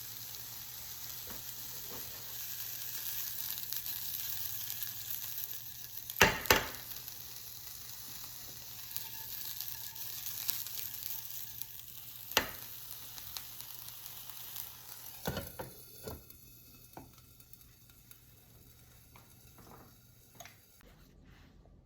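Chicken sizzling as it sautés in a frying pan, a steady hiss broken by three sharp knocks about six, twelve and fifteen seconds in. The sizzle fades away over the last several seconds.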